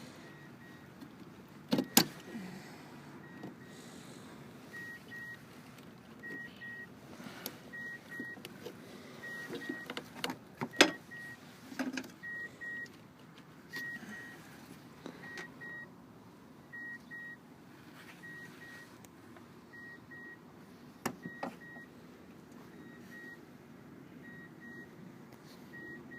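Toyota Tundra's warning chime beeping in short double beeps about every second and a half, with scattered sharp clicks and knocks as relays are pulled from and pushed into the under-hood relay box.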